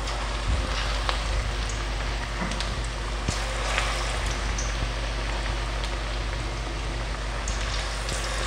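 Chicken pieces deep-frying in hot refined oil in a kadai: a steady, crackling sizzle, with a few light clicks along the way.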